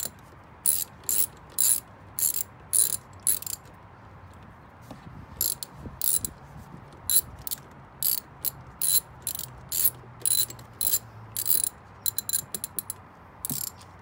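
Hand ratchet wrench with a 12 mm socket clicking as a seat-latch bolt is backed out, about two sharp clicks a second. The clicking pauses briefly a little under four seconds in, then resumes.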